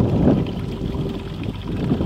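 Wind buffeting the microphone in gusts, a low, uneven rumble.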